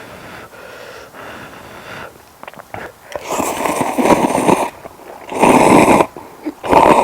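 Mouth noises while eating, then three loud, airy in-drawn slurps: the first long, the second shorter, the third brief near the end.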